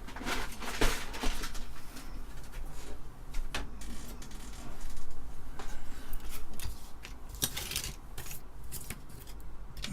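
Handling noises of circuit boards and parts on a workbench: scattered clicks, light knocks and rubbing as a computer motherboard is picked up and moved.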